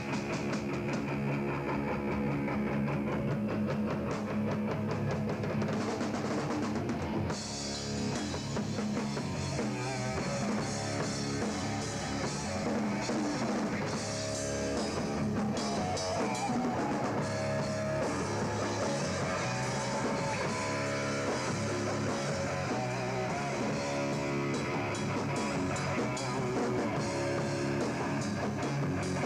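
Live rock band playing an instrumental passage: electric guitar over a drum kit. The sound gets brighter and busier about seven seconds in.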